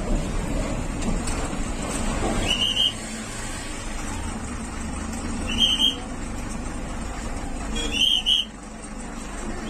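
Steady rumble of a road vehicle running, with four short high-pitched chirps, the last two close together near the end.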